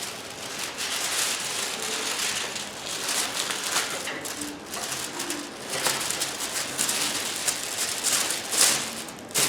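Paper rustling and rubbing in irregular strokes, as parchment paper is handled and smoothed over a diamond painting canvas.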